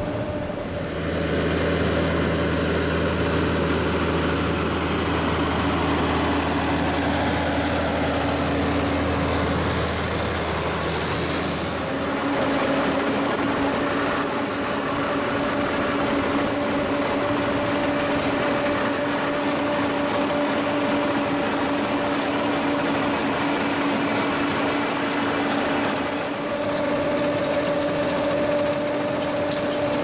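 Dewulf RA2060 trailed potato harvester at work, its machinery running with a steady drone that holds a constant hum. A deeper rumble underneath drops away about twelve seconds in.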